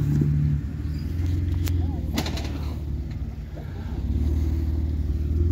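Off-road 4x4 engine running at low revs while crawling, easing off about half a second in and picking up again around four seconds. A couple of sharp knocks come about two seconds in.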